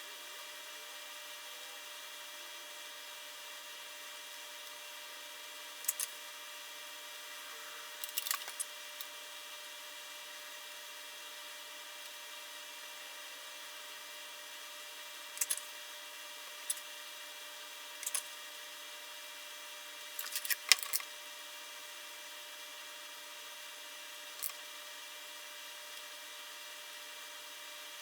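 Scattered light clicks and scrapes of hand soldering on a circuit board, the iron and solder working the connector pins, a few short groups several seconds apart. Under them, a steady faint hiss with a thin constant hum.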